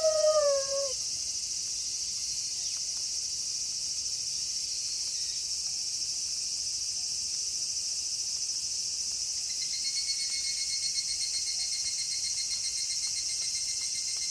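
A wolf's howl drops in pitch and ends about a second in, leaving a steady night chorus of crickets and other insects. From about ten seconds in, a fast, evenly pulsing insect trill joins in.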